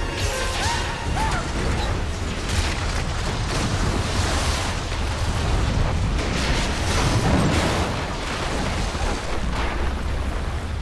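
Film sound effects of a building collapsing into a canal: a dense, continuous rumble of crashing, churning water and falling masonry, with music underneath.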